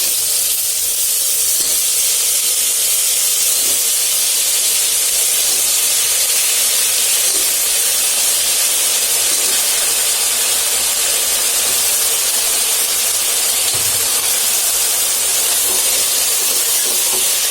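Potato and brinjal pieces frying in hot oil in a pressure cooker pan: a loud, steady sizzle that starts abruptly as the vegetables go in.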